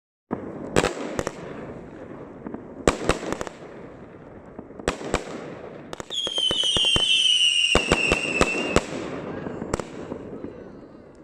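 Fireworks display: sharp bangs of shells bursting every second or two over a constant hiss. About six seconds in, a long whistle, falling slowly in pitch, lasts about three seconds amid rapid crackling.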